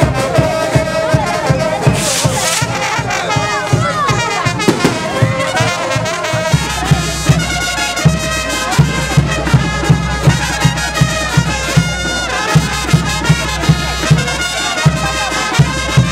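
Brass band playing wititi dance music, horns carrying the melody over a steady bass-drum beat.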